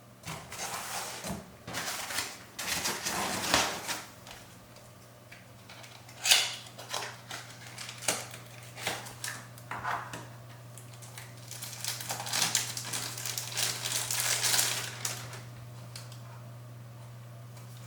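Packaging being handled and opened by hand: irregular rustling, crinkling and small clicks and knocks that come and go and stop near the end. A steady low hum runs underneath.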